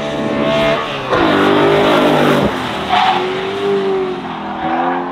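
BMW street car drifting on a track: the engine revs rise and fall several times while the rear tyres squeal and skid on the tarmac.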